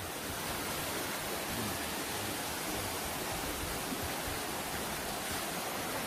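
Mountain stream water rushing down a small cascade between boulders, a steady rush.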